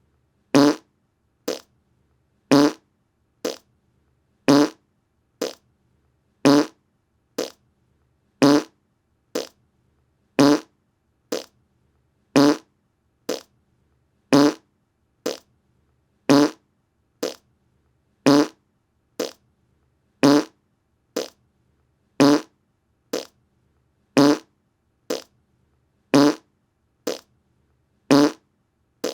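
Short fart sounds repeated about once a second, each a brief pitched blurt. A louder and a softer one alternate, and the same sound is looped over and over.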